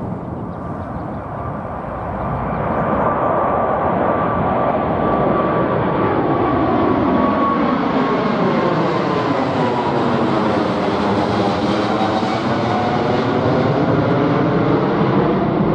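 Four-engined Boeing 747-8 airliner climbing out after takeoff and passing low directly overhead: steady jet engine noise that builds after the first couple of seconds, with a faint whine slowly dropping in pitch and a sweeping whoosh in its tone as it goes over, about ten seconds in.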